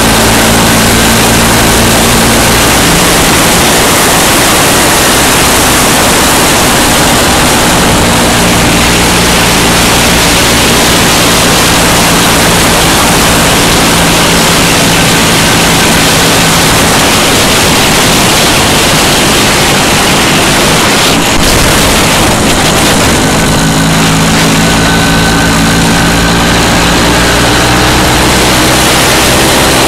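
Loud wind rush over the microphone of a moving MZ motorcycle, with the engine running steadily underneath; its note shifts and climbs in pitch during the last few seconds.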